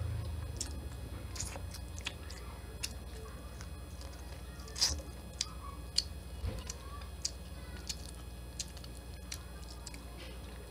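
Scattered small crackles and wet clicks of a cooked shrimp's shell being peeled off by hand, the sharpest about five seconds in, over a steady low hum.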